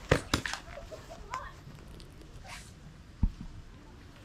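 Paintball marker shots: two sharp pops in quick succession near the start and a single pop about three seconds in.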